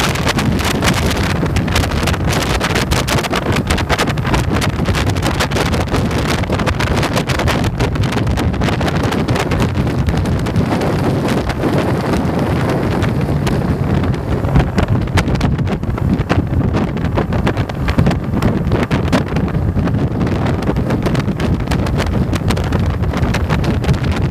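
Wind buffeting a motorcycle-mounted microphone at road speed, a constant rough crackling rush, with the motorcycle's engine running steadily underneath as a low rumble.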